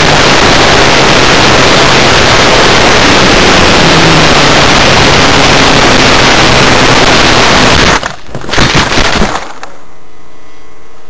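Loud wind rush over the onboard camera of a radio-controlled biplane gliding dead-stick with its motor stopped. About eight seconds in, the wind cuts off into a second and a half of rough knocks and scrapes as the plane hits the ground and tumbles. A steady quieter hiss follows.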